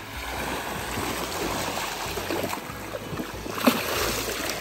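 Splashing and sloshing in shallow water as a man wades in and releases a snook, with one loud, sharp splash near the end as the fish is let go.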